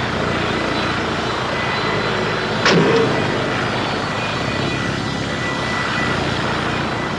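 Helicopter hovering, its rotor and engine making a steady drone. About two and a half seconds in, a brief sudden noise sweeps down in pitch.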